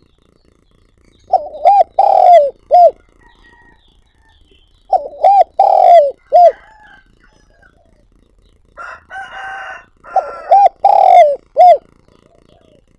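A spotted dove cooing: three phrases of about four notes each, two short notes, one long drawn coo and a short closing note, a few seconds apart. A brief, softer, harsher sound comes just before the third phrase.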